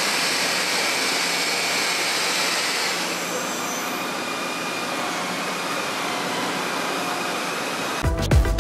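CNC turning center power-skiving a spur gear in carbon steel: a steady machining hiss and whir with a faint whine in it, easing slightly about three seconds in. Electronic music starts near the end.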